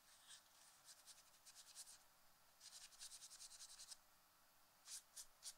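Paper towel rubbing against a small DC motor's pulley, faint quick scratchy strokes in a few short runs, as melted rubber drive-belt residue is wiped off it.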